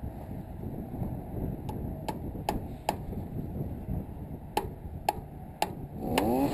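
Hammer nailing a wooden board to a wooden post: eight sharp strikes in two runs of four, a pause of over a second between the runs, over a steady low wind rumble on the microphone.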